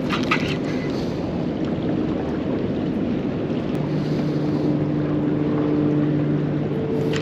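A small fishing boat's motor running while the boat is repositioned, its steady hum coming in about halfway through, over steady wind and water noise.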